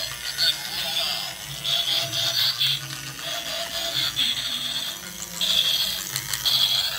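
Battery-powered transforming toy sports car playing tinny electronic music and beeping sound effects from its small built-in speaker, in repeating high, thin phrases, over the whir and rattle of its motor and plastic gears as it drives and transforms into a robot.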